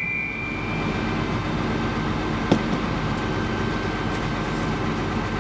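A steel brake drum on a school bus rings as it dies away after a hammer blow, the high ring fading over about the first second, with one light knock about 2.5 seconds in; a steady hum runs underneath throughout. The blows are meant to free a drum that is sticking on shoes that are out of adjustment.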